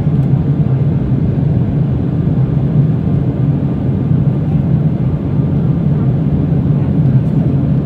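Steady cabin noise of an Embraer ERJ-175 climbing after takeoff: the even roar of its GE CF34-8E turbofans and the rush of air past the fuselage, heard from a seat by the wing, heaviest in a low hum.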